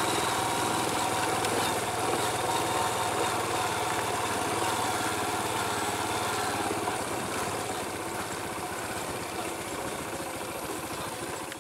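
Small motorcycle engine running steadily at low speed while riding along a dirt path. It gets a little quieter over the last few seconds.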